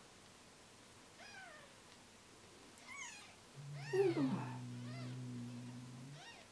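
A newborn British Shorthair kitten mewing about five times in short, high, rising-and-falling squeaks, the loudest about four seconds in, as it is wiped and held in a towel. From about the middle a low steady drone sounds underneath and stops shortly before the end.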